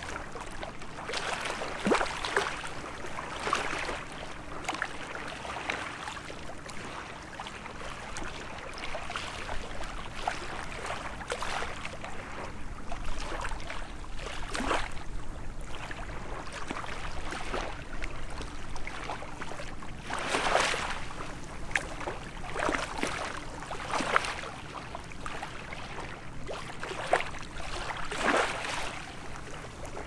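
Small waves on a calm sea lapping and splashing in irregular surges every few seconds, with a few sharper splashes standing out, more of them in the second half.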